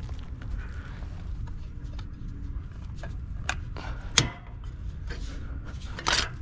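A few sharp knocks and clanks as a cordless drill and metal parts of a blower motor and its mounting plate are handled, the loudest about four seconds in, over a steady low rumble.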